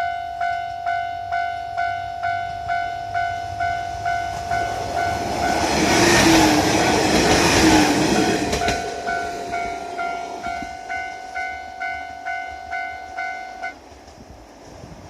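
Level-crossing warning bell ringing about twice a second while a Shigaraki Kohgen Railway diesel railcar runs through the crossing, loudest as it passes in the middle. The bell stops suddenly near the end, once the train has cleared.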